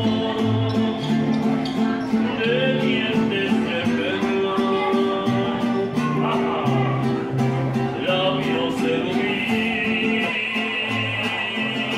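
Mariachi band playing live: big acoustic guitars pluck a stepping bass line under strummed chords, with a man singing.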